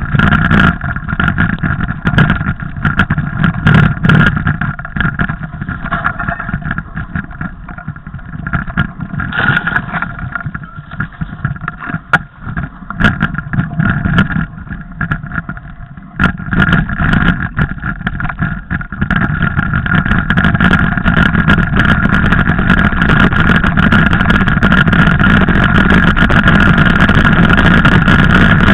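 Mountain bike riding over a snowy trail, heard from a camera mounted on the bike or rider: a continuous rumble and hum with many clicks and rattles. It is quieter and choppier for a stretch in the middle and grows louder and steadier toward the end.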